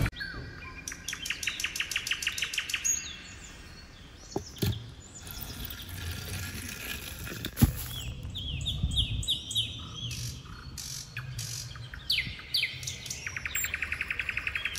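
Songbirds singing: a fast trill near the start and again near the end, with a run of short downslurred chirps in between. A sharp click sounds about eight seconds in.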